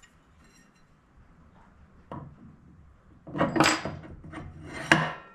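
Metal clutch clinking and scraping against the engine's output shaft as it is worked onto it by hand. There is a click about two seconds in, a burst of metallic clattering about a second later, and a sharp ringing metal clank near the end.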